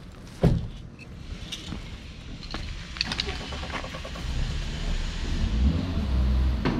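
A sharp knock about half a second in, then scattered light clicks, and a car engine's low rumble that grows louder over the last few seconds.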